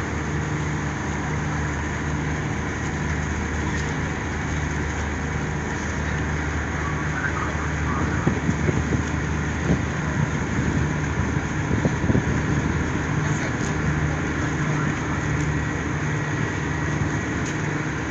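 A steady low engine drone over general outdoor noise, with irregular louder rumbling for a few seconds in the middle.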